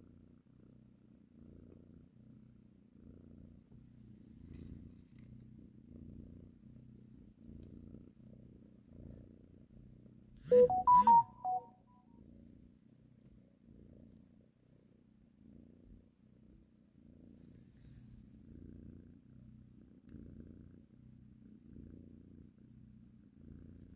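Mother cat purring softly while nursing her kittens, a low rhythmic purr. About ten seconds in, a brief loud burst of a few short tones cuts across it.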